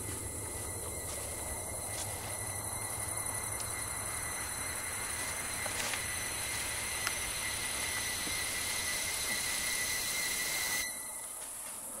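Night insects, crickets most likely, chirring steadily in a high, even band, over a low hum and hiss; the hiss drops away abruptly near the end.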